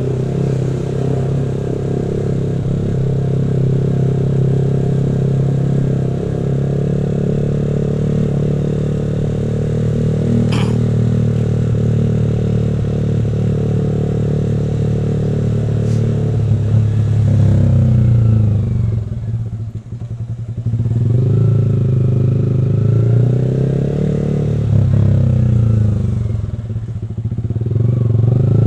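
Yamaha R15 V3's 155 cc single-cylinder engine running through a D'Crow Blaxton GP carbon aftermarket exhaust. The engine note holds steady for about seventeen seconds, then drops and climbs again several times as the revs fall and rise.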